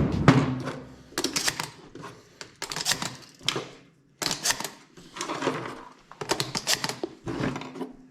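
Repeated bursts of metallic clicking and rattling, roughly one a second: 12-gauge shells being pushed one by one into a semi-automatic shotgun's magazine.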